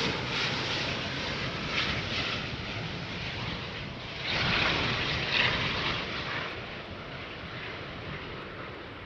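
Jet airliner engine noise: a steady rumble that swells louder about four to six seconds in, then fades.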